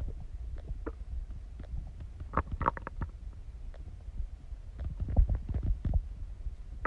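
A human stomach growling and gurgling: a constant deep rumble with a quick run of short, higher bubbling gurgles about two and a half seconds in, and louder low rumbles around five seconds in.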